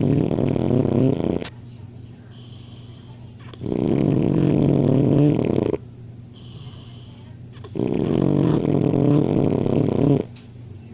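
A sleeping boy snoring loudly. There are three long snores of about two seconds each, spaced about four seconds apart; the first is already under way at the start.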